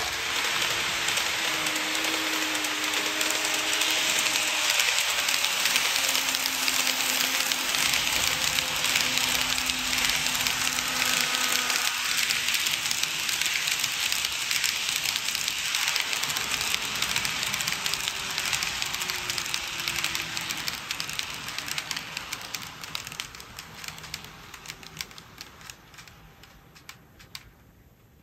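KATO N-gauge E235-1000 series model train running on the layout track: a dense rattle of small wheels clicking over the rail joints, with a faint motor whine. It fades over the last several seconds, the clicks spreading out as the train slows to a stop.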